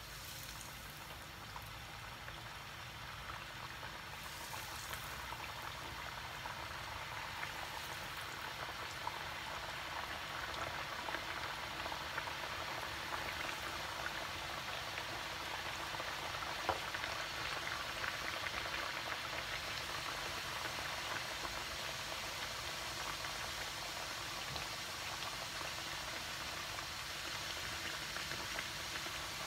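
Flower-shaped dough fritters deep-frying in hot oil in a pan: a steady sizzle and crackle of bubbling oil that grows louder over the first several seconds as more pieces go in, then holds.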